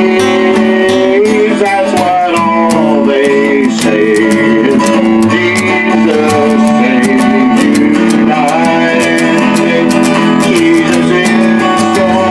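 Acoustic guitar strummed through a run of chords, with sharp, repeated strokes and chord changes every second or so.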